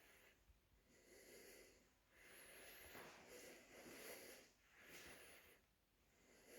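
Near silence, with only a few very faint soft swells of noise.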